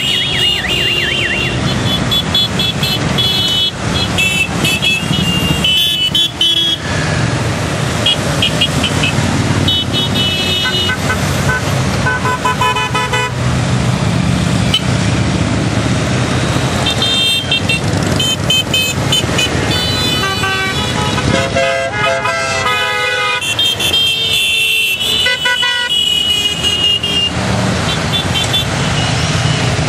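A large convoy of motorcycles passing close by, engines running, with horns tooted again and again in short beeps, several at a time at different pitches.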